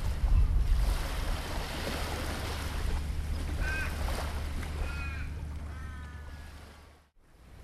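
Wind rumbling on the microphone over gentle surf on a sandy beach, with a bird calling in three short bursts in the second half; the sound fades out near the end.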